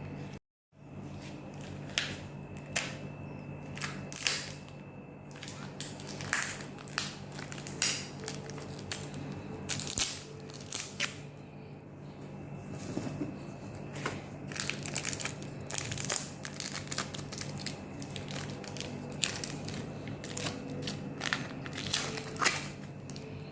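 Packaging crinkling and rustling, with scattered short clicks and knocks of things being handled, over a steady low hum.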